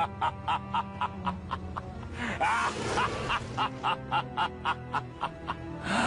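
Background music with a steady beat of about four clicks a second over steady low notes, with a few short sliding cries around the middle.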